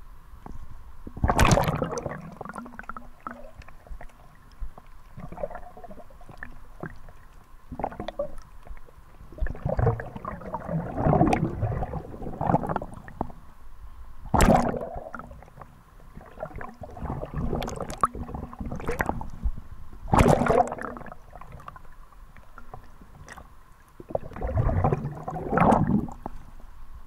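Seawater splashing and sloshing at the surface close to the camera as a swimmer moves through the water, in irregular bursts. The loudest splashes come about a second and a half in and again around fourteen and twenty seconds in.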